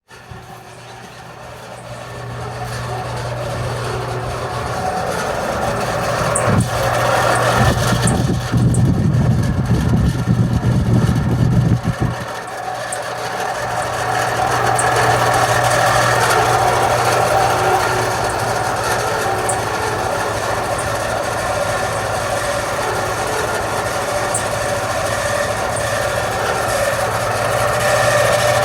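Air-conditioning unit's fan motor running with a loud screech: several steady high tones over a hum, building up over the first few seconds, with a louder rumble from about 8 to 12 seconds in. The bearing still screeches after being greased, and the owner wonders whether the motor needs replacing.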